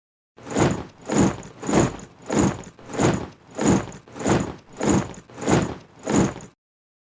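A squad of soldiers marching in step on parade, many boots striking together in unison: about ten heavy, even footfalls, a little under two per second, that then stop.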